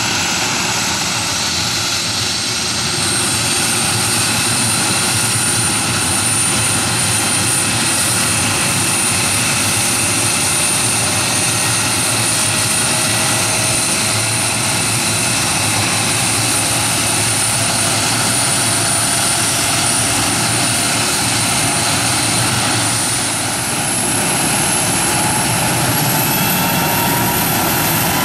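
MD 600N NOTAR helicopter's turbine engine running on the ground with the main rotor turning: a steady rush of noise under a high turbine whine. The whine steps up in pitch about three seconds in and climbs again near the end as the engine speeds up.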